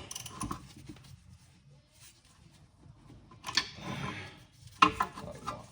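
Hand tools and metal brake parts being handled: scattered light clicks and scraping, with two louder clattering bursts near the end.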